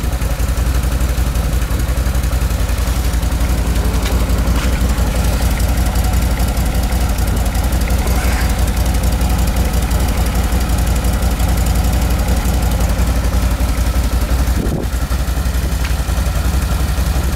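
A 2013 Can-Am Outlander 1000 Max XT ATV's V-twin engine idling steadily through its stock exhaust.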